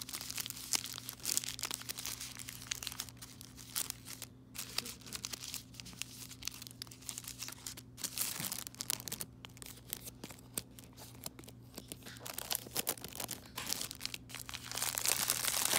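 Thin plastic packaging crinkling and tearing as it is handled and pulled open, a dense run of quick crackles that is heaviest at the start and again near the end.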